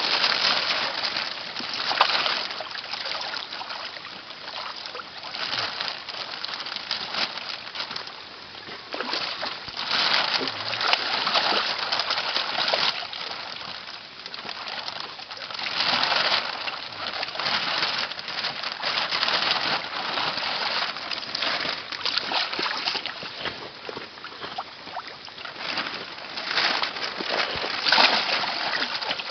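Water splashing and sloshing in uneven surges, from koi being handled in water during a pond harvest.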